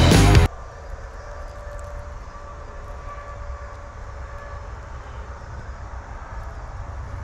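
Music cuts off about half a second in, leaving a steady low rumble with a faint steady hum.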